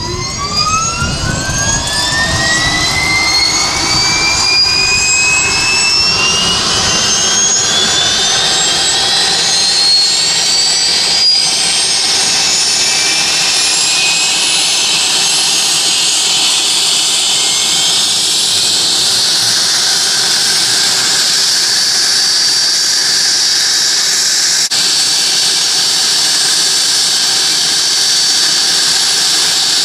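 Cessna Citation II's Pratt & Whitney JT15D turbofan being started: a whine that climbs steadily in pitch as the engine spools up, then settles into a steady high whine after about twenty seconds.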